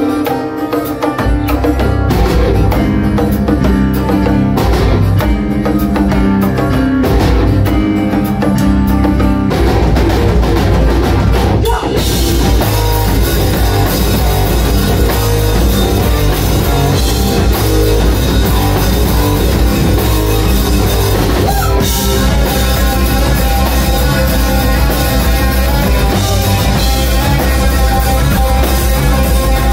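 Live rock band playing: bass guitar, electric and acoustic guitars and a drum kit. About twelve seconds in the full band comes in and the sound grows denser and brighter.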